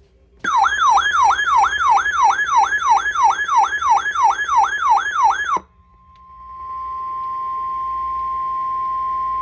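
An electronic alert siren, a loud tone sweeping quickly downward about three times a second, stops abruptly after about five seconds. Then the steady single-pitch 1050 Hz NOAA Weather Radio warning alarm tone fades in, the attention signal that announces a warning-level alert.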